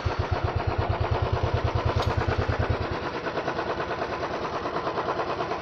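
Royal Enfield Thunderbird 350X single-cylinder engine idling just after being started, with a steady pulsing thump. The deep part of the beat eases about three seconds in.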